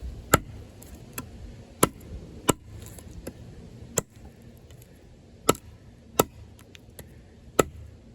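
Large D2-steel bowie knife, an Off-Grid Caiman XXL, chopping into a hard piece of wood: a series of sharp chops about a second apart, some harder than others.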